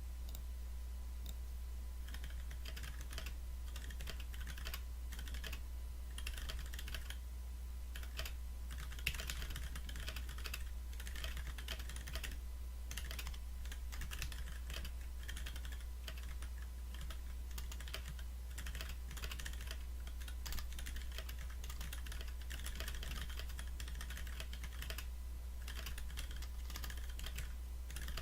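Typing on a custom mechanical keyboard with GMK keycaps, Clearsun switches on MX Black springs and Zeal stabilizers: a steady stream of keystrokes that starts about two seconds in and pauses briefly now and then, over a steady low hum.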